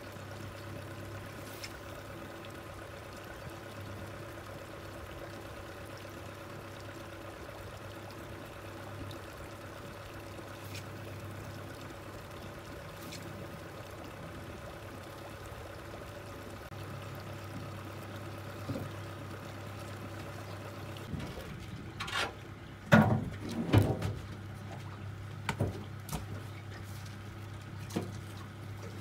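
Gentle trickling and lapping of river water against the aluminium hull, over a faint steady low hum. Near the end come a few sharp knocks and clunks.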